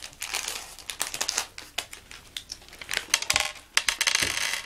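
A plastic sweet packet of Dark Chocolate M&M's being torn open by hand: a dense run of crinkling and tearing crackles, with a couple of dull bumps in the second half.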